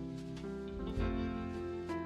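Soft background music: sustained notes with a plucked guitar-like tone, no speech.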